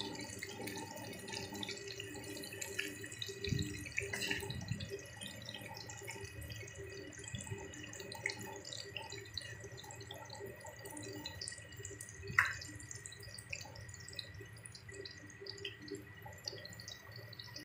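Gram-flour pakoras deep-frying in hot ghee: a steady sizzle and bubbling full of small crackles, with a spoon stirring through the pot a few times.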